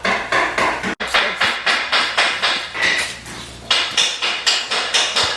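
Rapid run of sharp knocks, about four a second with a brief pause a little past three seconds in, from floor-laying work: hammering or a flooring nail gun driving nails.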